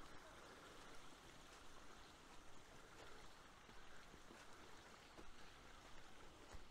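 Faint footsteps on a muddy hill path, about two steps a second, over a steady low rushing background.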